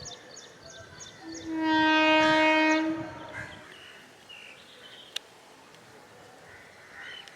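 A horn sounds once, a single steady note held for under two seconds. Just before it comes a quick run of short, high chirps.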